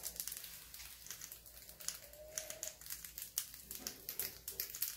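Feeder mice crunching pieces of salted potato chip: a faint, rapid, irregular crackle of tiny crisp snaps, sounds like Rice Krispies.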